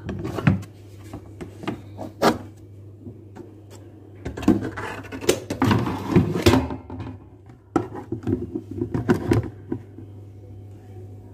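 A drinking glass knocking and scraping against plastic containers as flour is scooped from a bin and tipped into a plastic basin, in several bursts of clatter, over a steady low hum.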